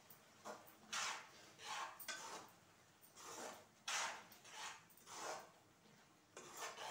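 A spatula scraping and stirring amaranth-leaf and tomato curry in a steel kadai, about ten short scrapes in an uneven rhythm, roughly one to two a second.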